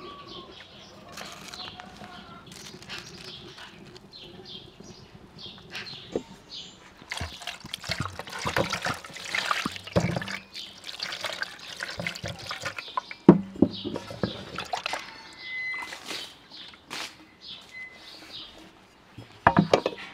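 Water poured from a clay jug into an aluminium basin, splashing and trickling while hands rinse peeled potatoes in it, with a couple of sharp knocks against the basin. Before the pouring begins, birds chirp faintly.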